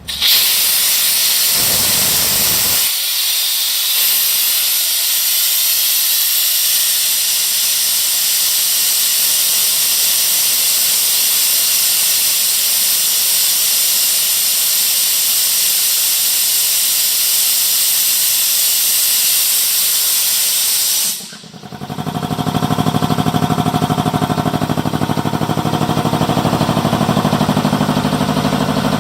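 Compressed air hissing loudly as it is bled off the tank of a Speedaire 10 HP two-stage air compressor. About 21 seconds in the hiss stops abruptly, and a second later the compressor kicks on at its 100 PSI cut-in pressure: the electric motor and two-stage pump run with a steady rapid pulse.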